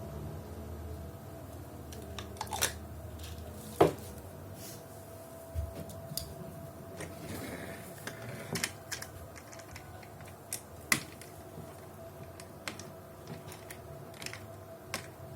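Irregular clicks and light knocks of objects being handled, with a sharp knock about four seconds in and another near eleven seconds, over a faint steady hum.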